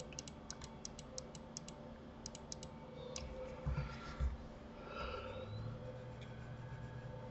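A quick run of light clicks at the computer, several a second, over the first few seconds. Then two dull low thumps, the loudest sounds here, about three and a half and four seconds in, over a faint steady hum.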